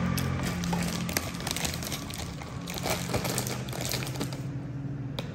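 Light crinkling and scattered small clicks from eating at a table, a fork and food handled near the microphone, over steady soft background music.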